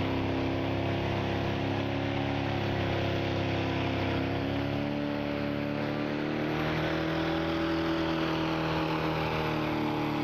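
Stock diesel pickup truck engine held at high revs under heavy load while pulling a weight-transfer sled. The engine note sags slightly through the middle and climbs again about seven seconds in.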